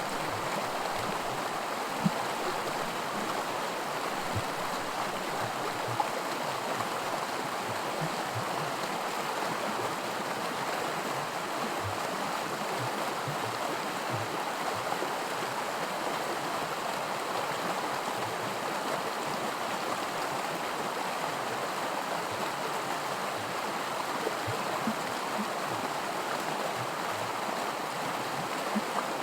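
Shallow creek water rushing steadily over small rapids, a constant babble with occasional low plops and splashes.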